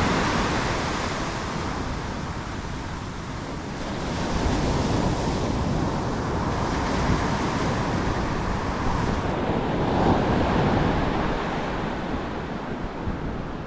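Ocean surf breaking and washing up the beach, rising and falling as the waves come in, with wind on the microphone.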